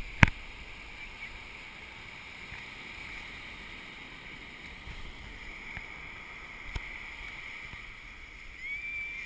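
Steady wash of ocean surf, with a loud sharp click just after the start and a smaller click about seven seconds in.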